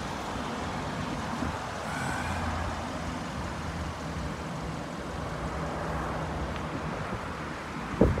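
Steady low rumble of motor vehicles, with a faint even hum underneath. A short loud knock or rustle comes near the end.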